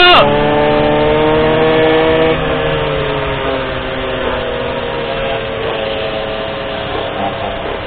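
Small 50cc goped (motorized scooter) engine running steadily while riding; a little over two seconds in, the engine note drops slightly and gets quieter as the throttle eases.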